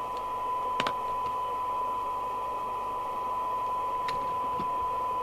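Domico Convoy FM CB radio's receiver audio: a steady 1 kHz test tone from the signal generator, demodulated and heard over background hiss, as used to check the receiver's sensitivity on a set that is deaf on receive. A short click about a second in.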